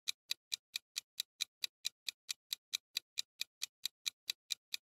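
Countdown-timer ticking sound effect: even, sharp clicks at about four to five a second, marking the seconds left to answer.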